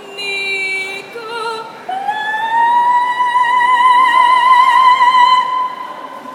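A woman gondolier singing in an operatic style: two short notes, then from about two seconds in one long high note held with vibrato that fades out near the end.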